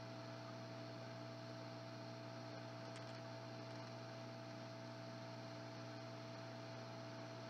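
Faint steady electrical hum with a few constant tones and light hiss, unchanging throughout.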